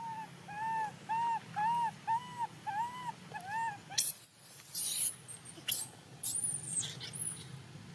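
Baby macaque crying: a run of about eight short, arched, whimpering calls, roughly two a second, then loud, very high-pitched shrieks and squeals from about four seconds in.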